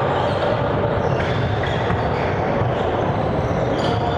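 Basketball game in a gymnasium: a steady din of the hall with sneakers squeaking briefly on the hardwood floor and the ball bouncing now and then.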